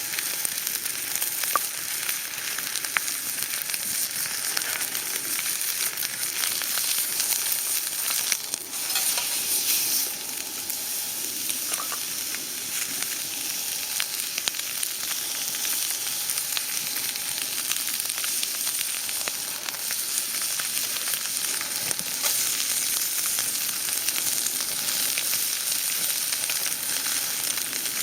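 Food frying: a steady sizzle with scattered small pops.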